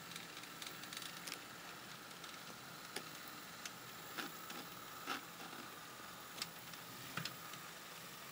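Faint, irregular clicks of model railroad freight cars rolling slowly over rail joints and turnouts while being shunted, with a faint steady hum underneath.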